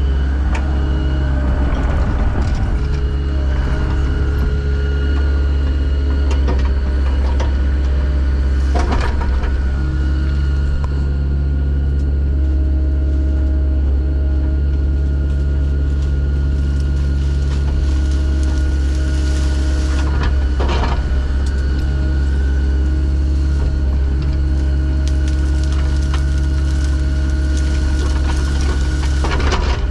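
A heavy engine running steadily at constant speed, a deep drone with a steady hum above it. Three times, roughly 9, 21 and 29 seconds in, a short rushing sound cuts across it.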